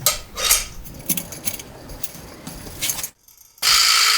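Light clicks and clanks as a vibraslap is handled on its stand. Near the end it is struck once: a sudden loud rattle that keeps buzzing.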